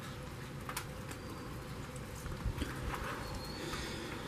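Steady low wind rumble on the microphone, with scattered light taps and the patter of light rain falling on standing floodwater.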